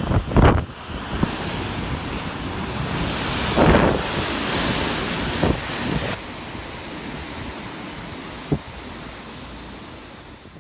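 Hailstorm with strong wind: a steady rushing roar that swells, then fades off toward the end, with a few sharp knocks.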